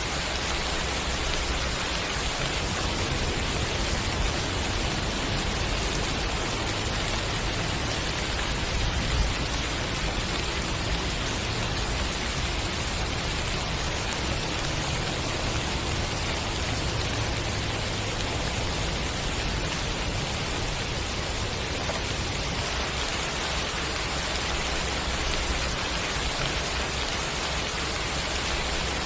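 Steady rain falling: an even, continuous hiss with a low rumble underneath.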